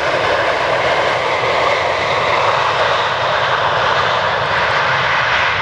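Boeing 737-800 airliner's CFM56-7B turbofan engines, a loud steady jet roar as the plane rolls out along the runway after touchdown.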